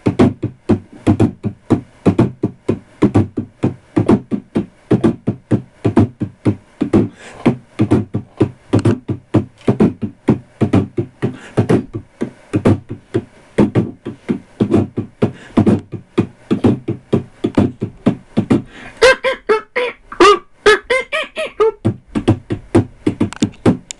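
A person beatboxing into a microphone: a fast, steady rhythm of percussive mouth sounds, with pitched, voice-like sounds mixed in for a few seconds near the end.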